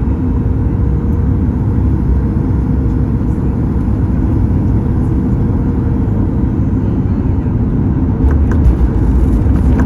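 Steady low rumble of engine and airflow noise inside the cabin of a Boeing 737 MAX airliner, growing a little louder near the end with a few faint clicks.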